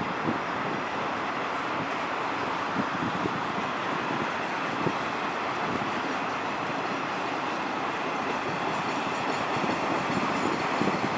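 Canadian Pacific freight train's autorack cars rolling past: a steady rumble of steel wheels on rail with scattered faint clicks.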